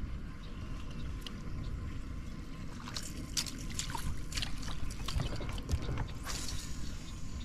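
Fishing reel being cranked, a run of rapid ratcheting clicks about three seconds in and another short run near six seconds, over a steady low rumble.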